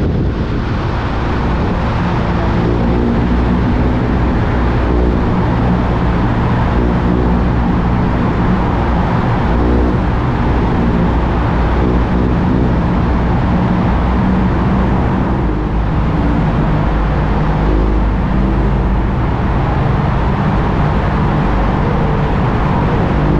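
BMW R1250 GSA's boxer-twin engine and exhaust running at steady motorway speed inside a road tunnel, the throttle rolled on and off so the exhaust note swells and eases, echoing off the tunnel walls. A steady rush of wind and road noise lies under it.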